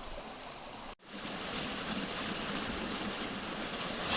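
Creek water running steadily, an even rushing hiss, cut off for a moment about a second in.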